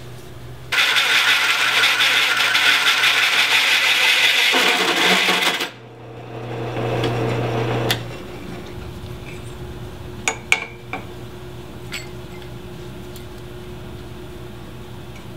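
A drill press spinning a 2-inch hole saw through 1/4-inch steel plate: a loud, steady cutting noise for about five seconds, then the press motor runs on its own and stops. A few light metallic clinks follow near the end.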